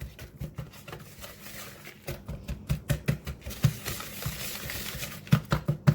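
A whisk clicking and scraping against a mixing bowl as flour, brown sugar and spices are mixed and lumps of brown sugar are broken up. The taps are irregular and come in quick runs.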